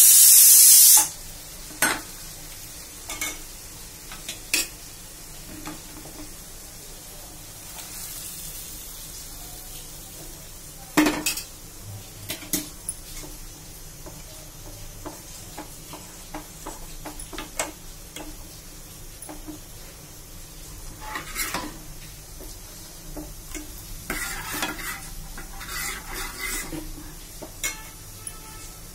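A loud hiss cuts off about a second in. Then a metal ladle knocks, clinks and scrapes in metal cooking pots as boiled dal is stirred together with the fried tomato-onion tadka, over a low sizzle.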